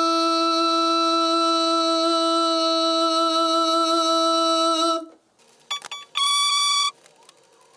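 A man sings one long, steady "do" on a single fairly high note, held as a pitch sample, until it stops about five seconds in. Shortly after, a brief, higher keyboard note sounds, followed by a few clicks.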